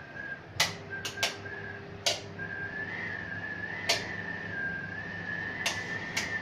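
Wind whistling in a flat: a steady high whistle that wavers slightly in pitch and drops out briefly about two seconds in. Several sharp clicks or knocks are scattered through it.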